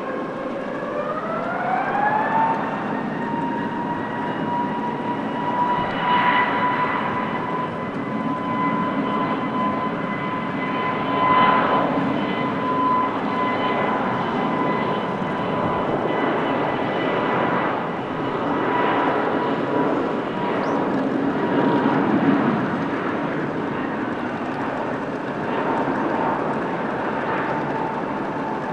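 Airbus A321neo jet engines spooling up for takeoff. A whine rises over the first two seconds, then holds steady over the roar of the jet exhaust.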